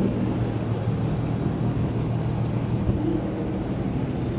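A car engine idling steadily, a low even hum under a wash of outdoor noise.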